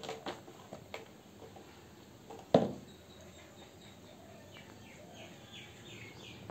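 A sneaker scuffing and tapping on a concrete floor as a kitten tumbles it, with one loud knock about two and a half seconds in as the shoe drops back upright. After that a bird chirps in the background in a quick run of short calls, about three a second.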